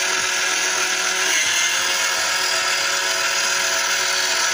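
Pelamatic Robito Vaina electric pea and bean sheller running while shelling broad beans: its small motor and rollers give a steady whirring hum over a hiss. The hum's pitch dips briefly about a second and a half in.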